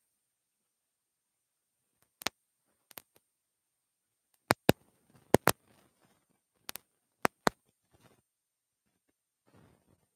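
A series of sharp clicks, most of them in quick pairs, from about two seconds in until about three-quarters of the way through, with faint rustling between them and again near the end.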